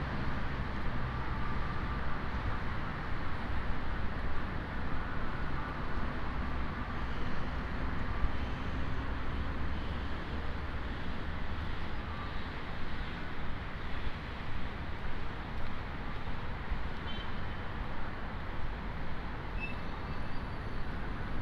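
Steady road traffic noise of an outdoor city street.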